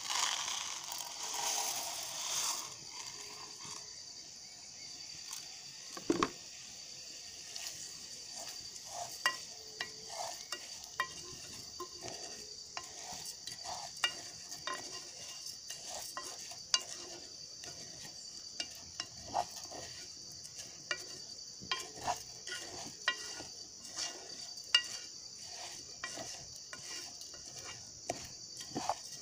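Dry rice poured into a saucepan of frying garlic, a brief rushing pour at the start. A wooden spoon then stirs and toasts the rice in the pan over a steady sizzle, with irregular knocks of the spoon against the pan.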